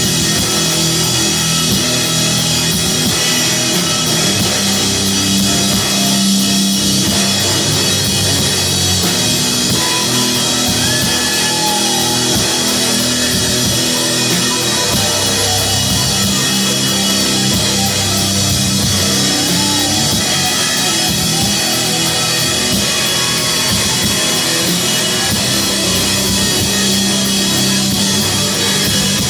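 Live heavy rock band with guitars and a drum kit playing at full volume, holding long low chords over the drums, with no vocals.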